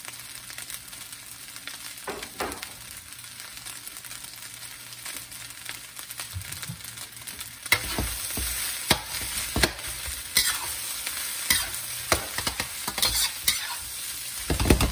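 Egg fried rice with bok choy sizzling in a steel wok. From about eight seconds in, a spatula scrapes and clacks against the wok as the rice is stirred and tossed, and the sizzle grows louder.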